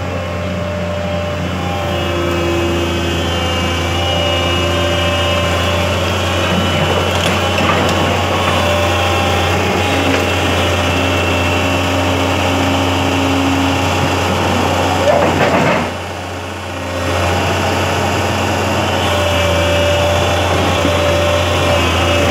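Komatsu tracked excavator's diesel engine running steadily as the machine crawls down off a lowboy trailer. Higher tones shift over the engine drone, with a brief louder burst about fifteen seconds in, after which the engine briefly drops off before picking up again.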